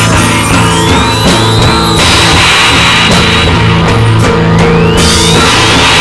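Loud rock music with drum kit and guitar, played steadily throughout. A high note glides upward twice, once near the start and again about two-thirds of the way through.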